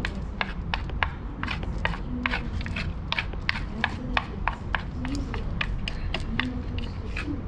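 Wooden chopsticks clicking and scraping against a lacquered lunch box as the last rice grains are gathered up: a quick, irregular run of light sharp taps, several a second.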